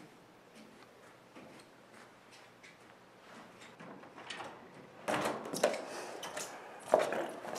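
Faint ticking room noise, then a wooden restroom door pulled open suddenly about five seconds in, with knocks and rustling as someone pushes out through it; a sharp knock near the end.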